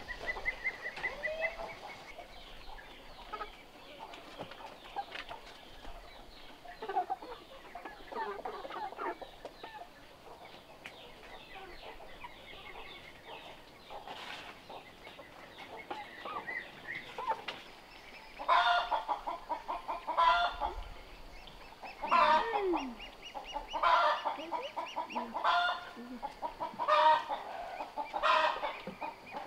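Chickens clucking softly at first. About two-thirds of the way in, a hen starts a loud cackle, a repeated call roughly every second and a half.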